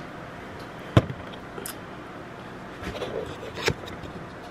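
Handling noise from a camera stand being lowered and adjusted: rubbing and scraping, with a sharp knock about a second in and another knock near the end.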